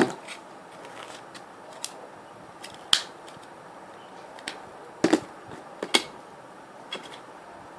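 Scattered small clicks and taps of plastic model-kit parts being handled and pushed together, about seven in all, the sharpest about three seconds in.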